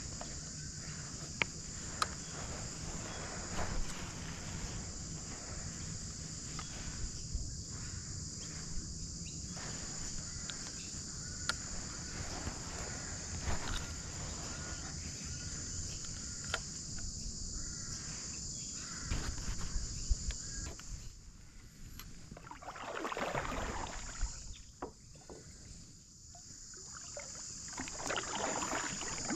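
A steady high-pitched drone of insects in the surrounding bush, which fades out for a few seconds about two-thirds through, over small clicks of fishing tackle being handled. Near the end a kayak paddle dips and swishes through the water.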